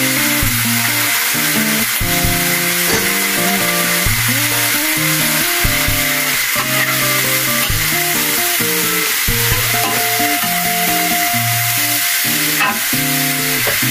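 Water spinach and pork cracklings sizzling as they stir-fry in a hot wok, tossed with a metal spatula, over background music.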